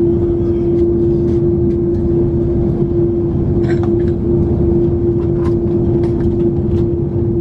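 Airliner cabin at the gate: a steady rush of air with a constant hum, with a few light clicks scattered through it.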